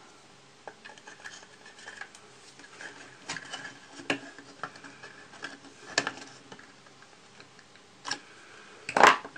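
Hobby knife prying and scraping at the glued seams of a plastic model kit: scattered small clicks, ticks and scratches as the blade works the joints, with one louder sharp crack near the end.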